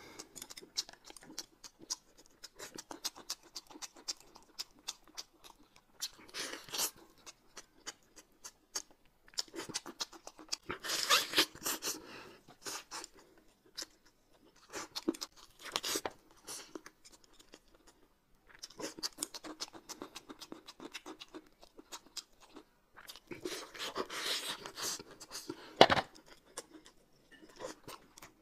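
Close-miked eating sounds: chewing and crunching, with short bursts of noise and small clicks, and one sharp knock about 26 seconds in.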